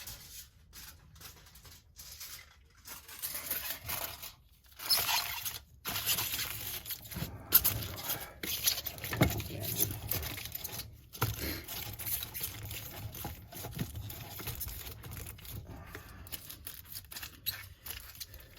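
Irregular rustling, scraping and handling noises as mason jars are worked on by hand, in uneven bursts with a few sharper knocks.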